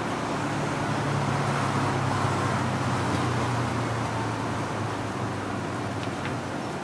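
A motor vehicle passing by: a low engine hum and road noise that swell over the first couple of seconds, the hum dropping slightly in pitch, and fade away over the last seconds.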